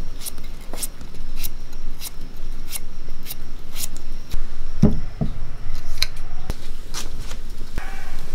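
A kitchen knife paring the skin off a raw potato, one short scraping cut about every half second. There are two dull knocks about five seconds in.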